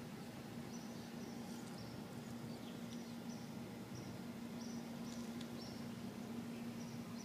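Short high-pitched chirps from a small animal, in groups of two or three, recurring every second or so over a steady low hum.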